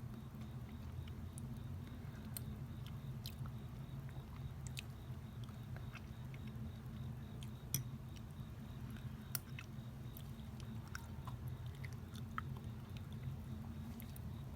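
Close-miked chewing of homemade grapefruit cheong, sugar-preserved grapefruit, with scattered small wet mouth clicks; one sharper click comes about halfway through. A steady low background drone runs under it.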